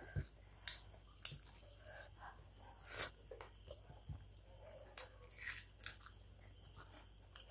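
Quiet close-up eating sounds from a meal eaten by hand off a banana leaf: fingers working rice and fish, and scattered short sharp crunches and mouth clicks of chewing.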